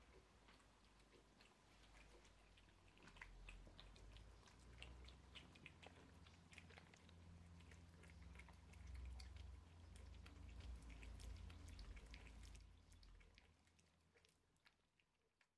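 Ragdoll cats eating wet minced meat from stainless steel bowls: faint, quick chewing and mouth clicks over a low rumble, fading out near the end.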